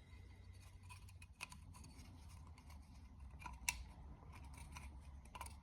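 Faint scattered clicks and light plastic-and-metal ticks of the oil filter housing parts being handled and refitted, over a steady low hum.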